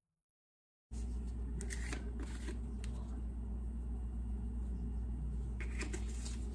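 Silence for about the first second, then a steady low hum with brief clicks and rustles as a small plastic spice jar is picked up and its cap taken off, twice in quick clusters.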